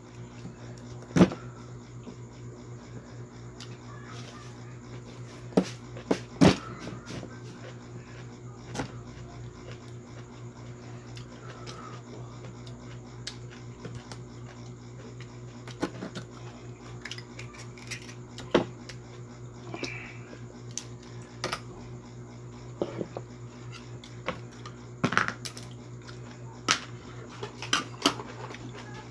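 Spoon and dishes clinking now and then while eating, a dozen or so sharp, irregular clicks, the loudest about a second in and twice around six seconds in, over a steady low hum.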